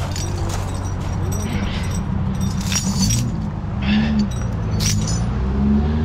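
Recovery chains and lift forks clinking and jangling as they are handled, a few separate metal clinks that ring briefly, over a vehicle engine running steadily underneath.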